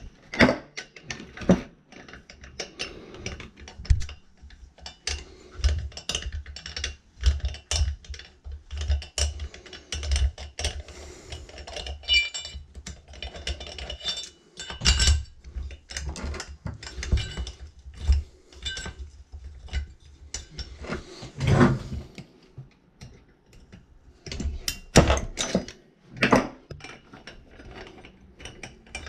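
Irregular clicking and clinking of hand tools on metal as the cylinder head bolts of a Poulan 3400 chainsaw are undone.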